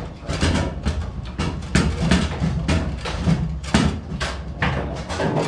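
Foosball in play: an irregular run of sharp clacks as the ball is struck by the rod figures and knocks against the table walls.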